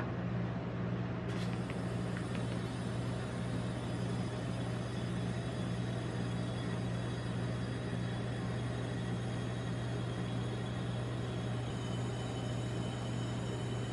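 Steady low mechanical hum of a rolled ice cream machine's refrigeration unit running under its steel cold plate, with a single sharp click about a second in.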